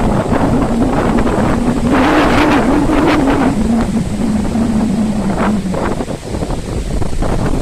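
Storm-force wind gusting and buffeting the microphone in loud surges. A low, wavering tone runs under the wind and fades out about six seconds in.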